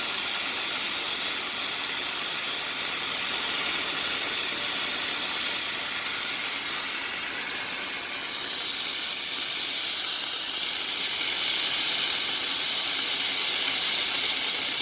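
Gas cutting torch on a homemade cutting machine, hissing steadily as it cuts through steel.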